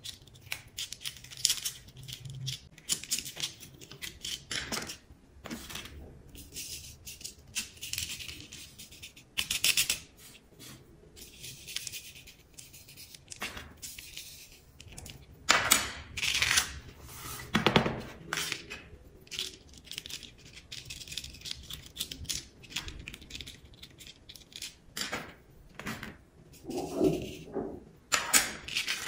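Close-up handling sounds of a colored-sand painting kit: a wooden stick scratching and peeling the backing off the sticky card, sand spread from a plastic spoon, and loose sand tapped off the card. These come as an irregular run of small clicks, scratches and rustles, with a few duller knocks near the end.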